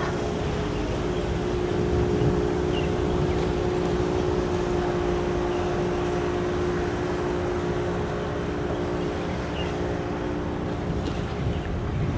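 A steady engine hum with a few constant tones over a low rumble, with wind on the microphone.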